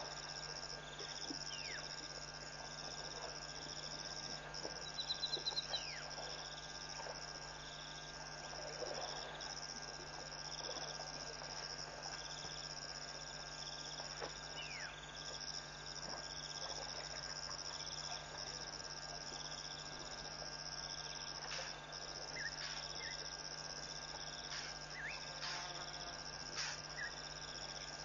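Chorus of insects chirring steadily at a high pitch, breaking off briefly at regular intervals, over a second chirp pulsing about once a second. A quick rattling call comes about five seconds in, a few short falling whistle calls are scattered through, and a steady low hum runs underneath.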